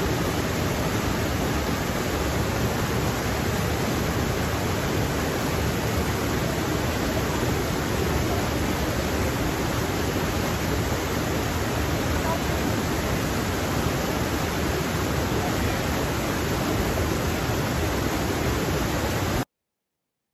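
Rocky forest stream rushing over boulders in small cascades: a loud, steady rush of water that cuts off suddenly near the end.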